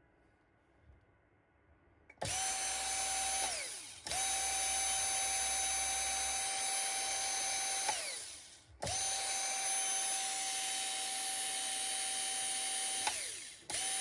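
Converted cordless drill motor and its gearbox running under bench power: a steady high whine that starts about two seconds in, is switched off and back on three times, each time winding down with a falling pitch before starting again.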